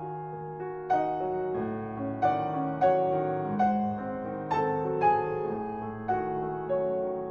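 Solo piano playing a slow, gentle classical piece, single notes and chords struck roughly every half second to a second and left to ring.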